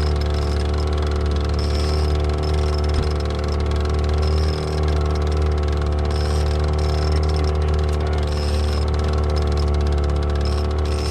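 Fishing boat's motor running steadily at trolling speed, a constant low drone with a faint high chirp coming back every second or two.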